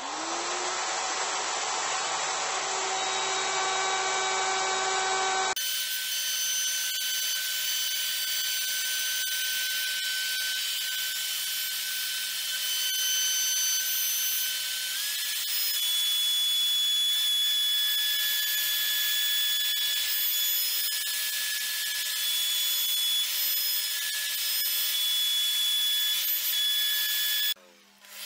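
Bosch plunge router spinning up and then running at speed as it cuts grooves in a board, a steady high whine made of several tones, with a brief drop near the end.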